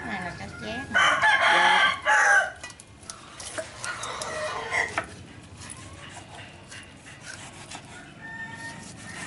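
A rooster crowing once, loud, starting about a second in and lasting over a second. Quieter handling noises follow, with scattered clicks and rubbing.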